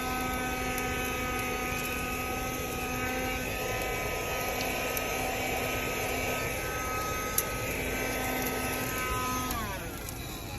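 1973 Dynamic handheld car vacuum running with a steady whine. It is switched off near the end and winds down, its pitch falling.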